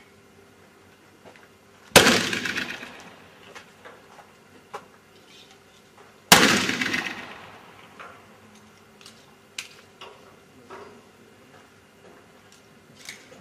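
Two black powder pistol shots about four seconds apart, each a sharp boom that echoes away over a second or so.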